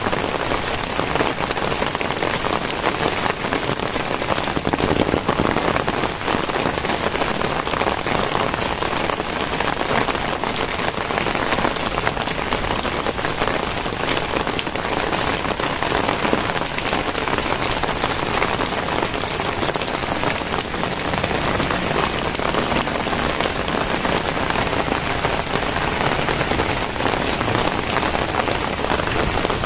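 Very heavy rain pouring down steadily, a dense patter of drops striking surfaces.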